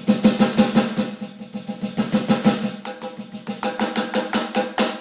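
Electronic drum kit being played: a fast run of snare and tom hits, several strokes a second, that breaks off just before the end.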